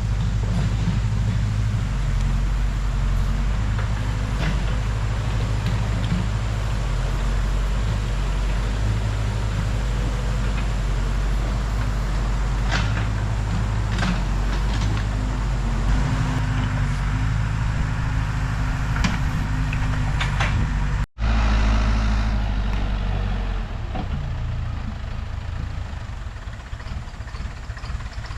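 Case 580 Super K backhoe loader's diesel engine running steadily, with a few sharp knocks from the machine's work mixed in. About two thirds of the way through the sound cuts out for an instant, and the engine then runs on more quietly.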